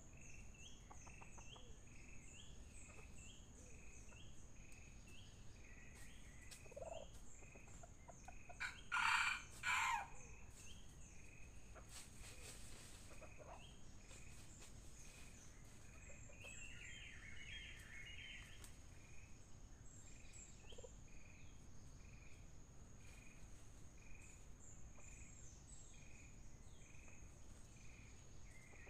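A red junglefowl rooster crows once about nine seconds in, a short crow in two parts. Behind it there is a steady high insect whine and a run of short high chirps repeating about twice a second.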